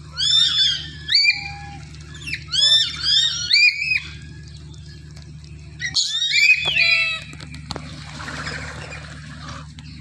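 A flock of lories screeching: shrill, harsh calls in three quick clusters of several calls each, with quieter gaps between.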